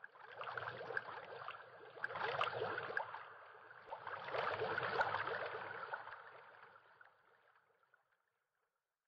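Logo-sting sound effect: a dense, crackling rush of noise with a watery character, swelling twice and fading out about eight seconds in.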